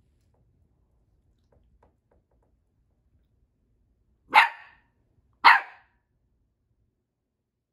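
A corgi puppy barks twice, about a second apart, at its own reflection in a mirror: two short, sharp puppy barks.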